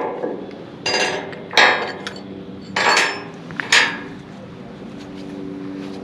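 Four sharp, ringing metal strikes on a steel I-beam within about three seconds, as the beam is knocked forward to line it up on its footings.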